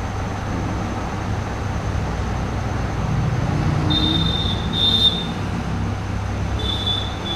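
Steady low machine hum, with three brief high-pitched squeals about four, five and seven seconds in.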